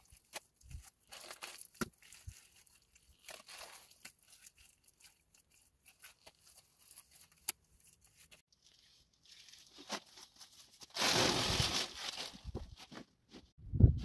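Wet clay being pressed into the gaps of a stone wall by gloved hands, with soft scrapes and small taps of stone. About eleven seconds in, a plastic bag rustles loudly for a second or so.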